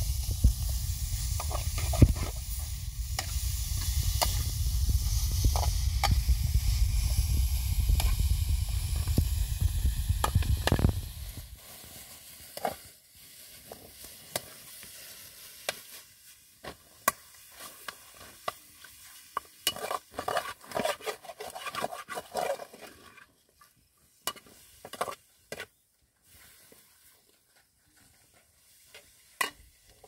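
Metal spoon stirring and scraping greens frying in a pan over a wood fire, with a sizzle and clinks against the pan under a low rumble. A little over a third of the way in the rumble and sizzle cut off, leaving lighter scrapes and taps of the spoon in the pan, then only a few scattered taps.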